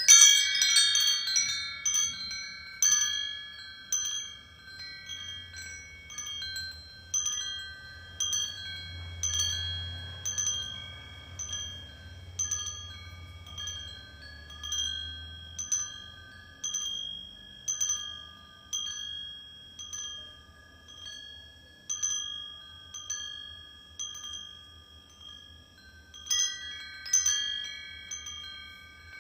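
Metal wind chimes ringing: a flurry of high tones at the start, then single strikes about once a second, each left to ring, and another flurry near the end.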